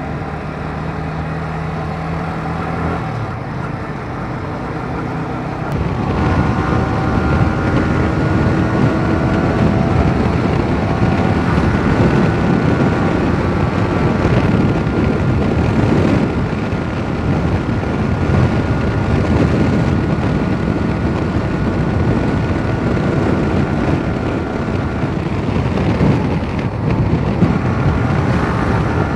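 Yamaha R15 V3 motorcycle's 155 cc single-cylinder engine running as the bike is ridden. The note is low and steady for the first few seconds. About six seconds in it grows louder, and from then on the engine hum at cruising speed is mixed with wind rush on the microphone.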